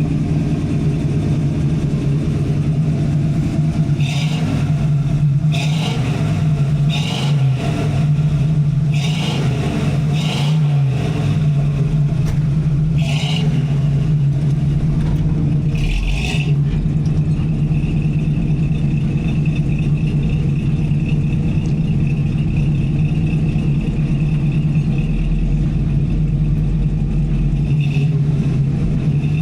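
Car engine running, heard through its exhaust as a steady low note. Between about 4 and 16 seconds in there is a series of short sharp bursts on top of it, then it settles back to a steady run.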